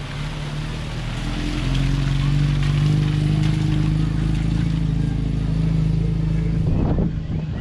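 Classic Alfa Romeo Bertone GT coupé's twin-cam four-cylinder engine driving out of a water ford and past close by, a steady engine note that grows louder over the first couple of seconds and drops away near the end. Water splashes off the tyres at the start.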